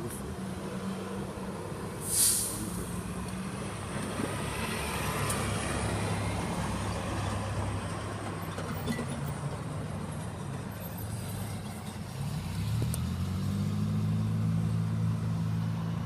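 Nearby road traffic: a heavy vehicle's engine runs low, with a short loud hiss about two seconds in. About twelve seconds in the engine pitch rises and then holds steady.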